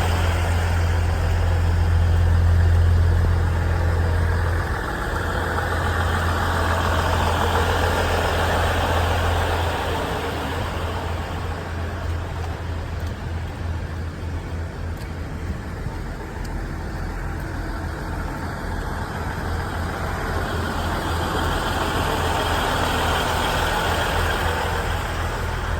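Diesel engines of a KiHa 110 series railcar set running. A strong low steady drone turns to an uneven, pulsing throb about five seconds in and carries on at a slightly lower level.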